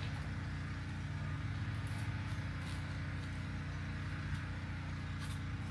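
Steady low hum with a few faint, light clicks.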